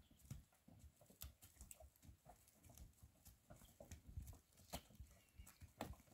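Near silence with faint, irregular clicks and soft knocks, a few a second.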